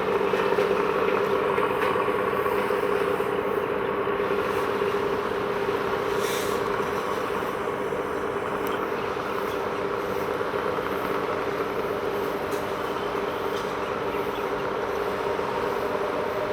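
Steady mechanical drone with a strong low hum, holding level throughout.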